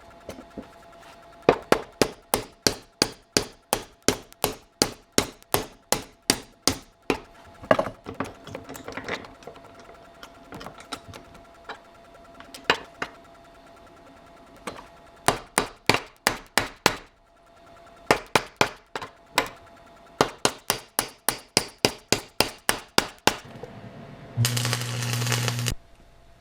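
Hammer blows on the steel shifter arm, in quick runs of about three strikes a second with short pauses between runs, each strike ringing. Near the end a power tool runs steadily for about a second and a half.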